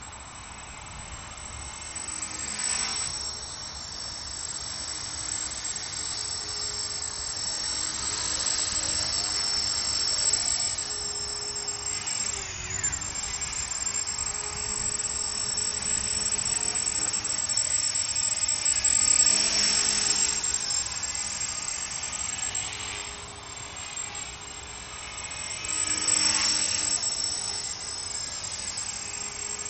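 CopterX 450 Pro belt-drive electric RC helicopter in flight: a steady high whine from its brushless motor and a lower rotor hum that swell and fade several times as it flies around.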